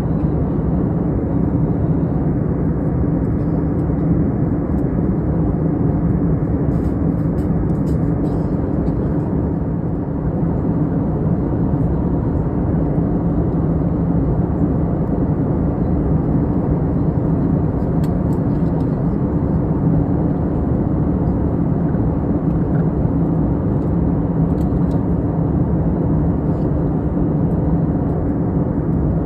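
Steady cabin drone of a jet airliner in flight: engine and airflow noise heard from inside, low and even, with a steady hum running through it.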